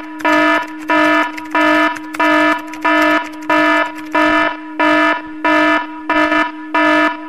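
Loud electronic alarm-like beeping: a pitched tone pulsing about three times every two seconds over a steady underlying tone.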